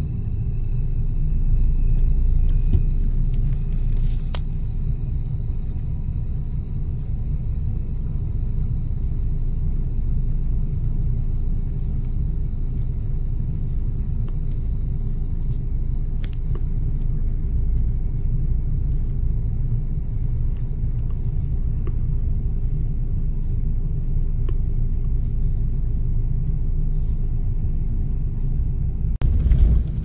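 Car driving slowly, heard from inside the cabin: a steady low rumble of engine and tyre noise with a faint steady hum over it, a few light clicks, and a single knock near the end.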